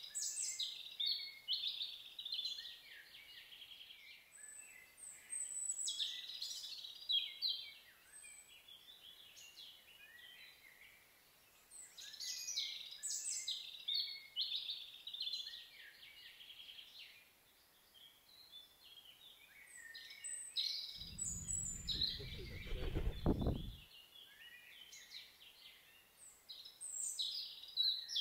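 Small songbirds singing: short phrases of high chirps and trills that come back every few seconds. About three-quarters of the way through, a low rumble lasts about three seconds.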